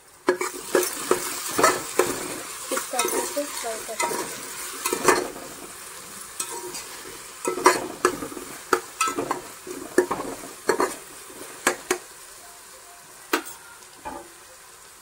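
Chopped onions sizzling as they fry in oil and ghee in a metal pan, browning, while a spoon stirs them with frequent sharp scrapes and clicks against the pan. The stirring knocks grow sparser near the end.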